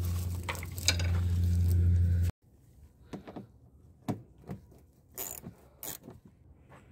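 A steady low hum with a few clicks, cutting off abruptly about two seconds in; then scattered single clicks of a small hand ratchet wrench turning a bolt in a car's plastic wheel-arch splash shield.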